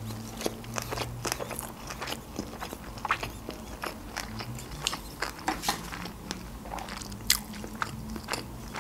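Close-miked chewing of a mouthful of food: irregular, quick mouth clicks with no steady rhythm.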